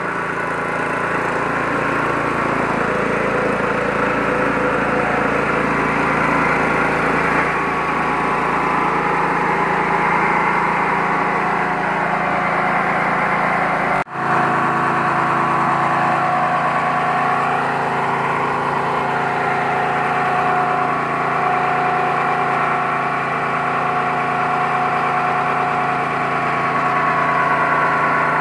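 Mini rice milling machine (KD 580 WG Pro huller) running steadily under its small engine, a constant mechanical hum with a vibrating hopper on top. There is a brief dip about halfway through, after which the running sound carries on much the same.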